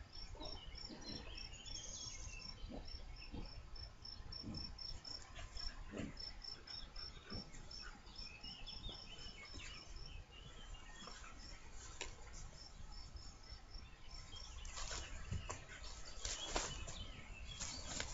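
A cricket chirping in a steady, even rhythm, about three high chirps a second, over faint rustling and soft thumps of a man and a young American Staffordshire terrier rolling in the grass. The chirping stops about 14 seconds in, and the scuffling in the grass grows louder near the end.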